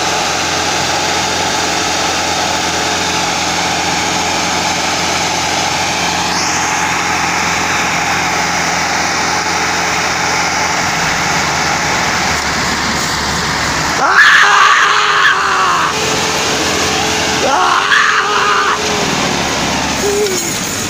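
Massey Ferguson 385 and 375 tractors' diesel engines running steadily at high revs under heavy load, pulling against each other in a tug-of-war. Loud shouting from onlookers breaks in about two-thirds of the way through and again a few seconds later.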